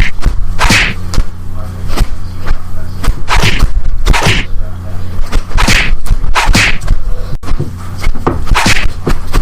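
A string of short swishes and sharp whacks, about one or two a second, over a steady low hum.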